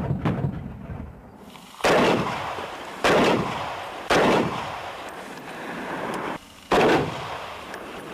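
Gunshots in a ballistic test of an armored car: a rapid burst of automatic fire that ends just after the start, then four single heavy shots, each with a long echoing tail.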